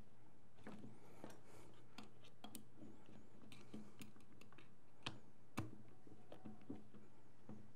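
Faint, scattered small clicks and ticks of a hex driver working the 3/32 set screws that hold the rods of a prosthetic forearm, the sharpest two about five seconds in, over a low steady hum.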